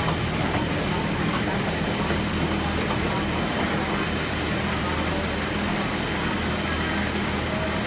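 Printing machinery running steadily: a constant drone with a low hum and a faint high whine.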